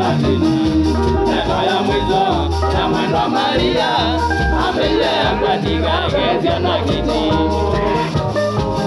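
Loud live band music with a singing voice over a pulsing bass line.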